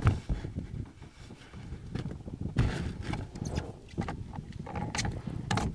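Irregular light knocks and rustling on a small plastic boat, with a sharp click about two and a half seconds in and two more near the end.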